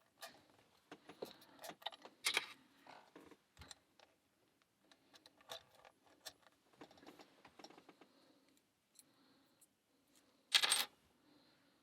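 A lock pick and tension tool working in the cylinder of an Abus Titalium 54TI/15 padlock during a speed-pick attempt: a scatter of small metallic clicks and rattles, with one louder, brief rattle near the end.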